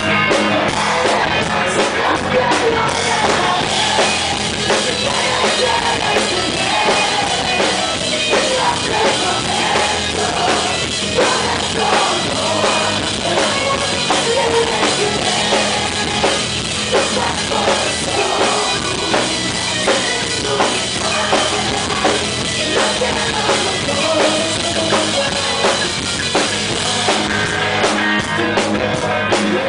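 A rock band playing live on stage: electric guitars over a steady drum kit beat.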